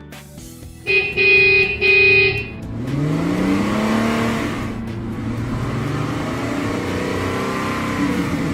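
A car horn honks twice, loud and pitched, then a vehicle engine revs up, its pitch rising, and keeps running.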